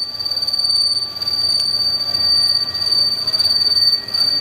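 Button-insert turning tool on a Haas SL10 CNC lathe squealing steadily and high-pitched as it roughs the spinning part. The squeal comes from too slow a feed rate; 0.02 IPR would have been right.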